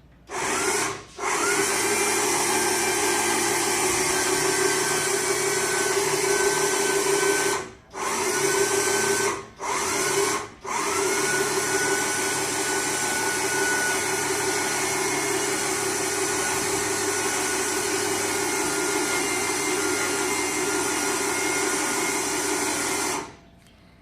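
Electric drive motor of a homemade lift platform for fridges and washer-dryers, running steadily under power. It is switched off and on several times, with short gaps about a second in and three more around the middle, and its whine rises each time it restarts. It stops near the end.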